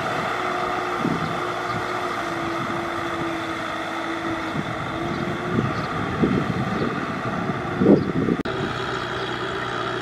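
Tractor diesel engine running steadily under working load while tilling a flooded paddy, its note holding even. Gusts of wind buffet the microphone a few times, most strongly about eight seconds in.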